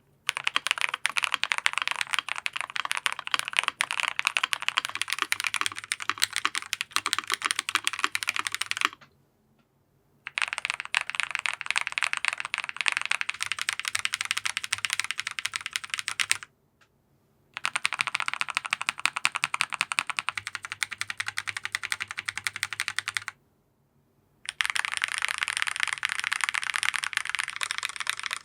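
Rapid, continuous typing on a Zoom75 custom mechanical keyboard with lubed Strawberry Milk linear switches and a brass plate. It comes in four runs broken by three short silent gaps.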